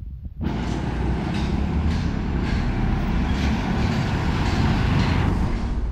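Street traffic: engines and tyres of passing vehicles, with a van driving past close by. It cuts in abruptly about half a second in and stays loud and steady.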